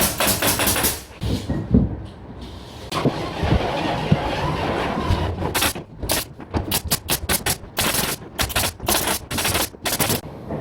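Carpentry work on a building site: a few seconds of steady hissing noise, then a quick run of sharp knocks, several a second, through the second half.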